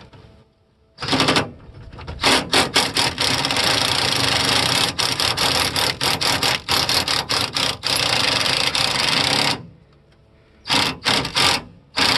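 Ryobi cordless impact driver hammering a long bolt in through a socket extension: a short burst about a second in, a long run of about seven seconds, then a few short bursts near the end as the bolt is snugged.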